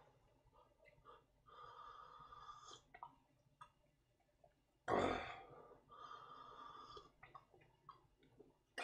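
Slurping hot bean sprout soup from a small stainless steel cup: two drawn-out sips about four seconds apart, with a louder breath out between them.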